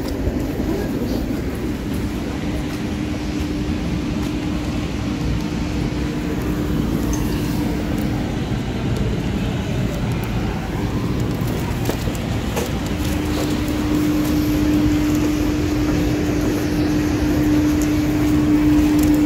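Train running with a steady rumble and rolling noise. A steady hum is heard twice: from about two seconds in, and again from about thirteen seconds in.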